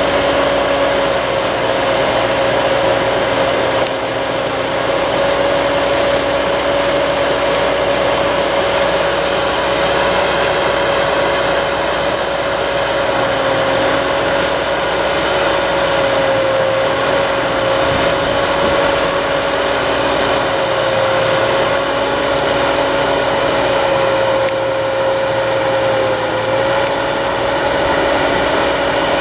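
Farm tractor engine running steadily at a constant speed, with a strong steady whine, while its front-end loader arm carries one end of a heavy half-pole stringer.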